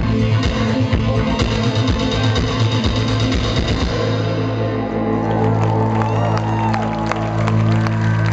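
Live rock band ending a song: drums and guitar play over a low bass-and-synth chord. About halfway through the drums stop, leaving the low chord held and ringing on.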